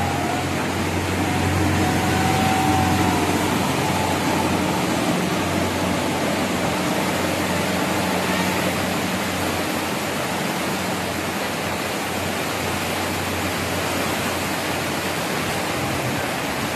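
Fast-flowing floodwater rushing in a steady, loud wash of noise, with a low steady hum underneath.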